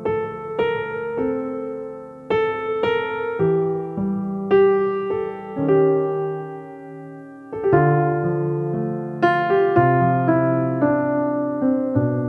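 Background piano music: a slow, gentle melody of struck notes and chords, each ringing out and fading before the next.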